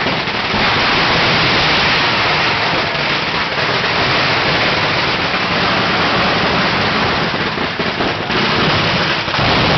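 Fireworks going off as a dense, steady crackling hiss, loud and unbroken for nearly ten seconds.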